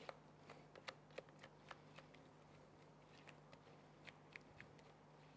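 Faint, irregular clicks and light scrapes of a kitchen utensil against a bowl and pan as thick cake batter is poured out.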